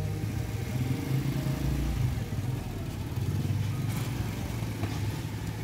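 A motorcycle and then an auto-rickshaw drive through shallow flood water on a street, their small engines running as they pass.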